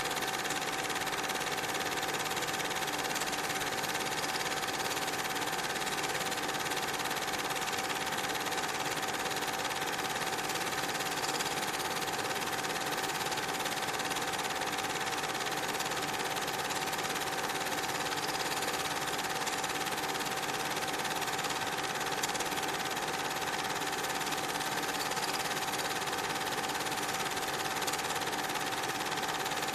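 A steady mechanical whirring hum with a constant high tone and hiss, unchanged throughout, with no separate train sounds standing out.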